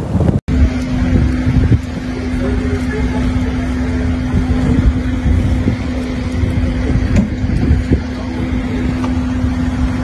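A motor vehicle's engine running with a steady hum over rumbling street traffic noise, after a brief break about half a second in.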